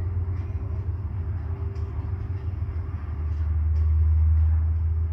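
Union Pacific freight train at a meet: a steady low diesel-and-rail rumble that swells about three to four seconds in, with faint clicks scattered through it.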